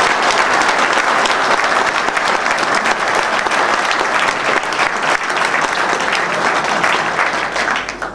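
Audience applauding, dense steady clapping that thins out right at the end.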